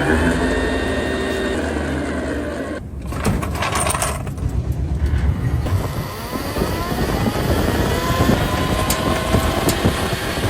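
Electric vehicle's drive motor and freshly replaced differential running with a whine that falls in pitch as it slows over the first couple of seconds, then rises again about six seconds in as it speeds up.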